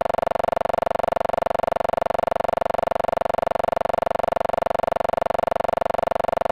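A steady buzz: one pitched tone pulsing rapidly and evenly without change.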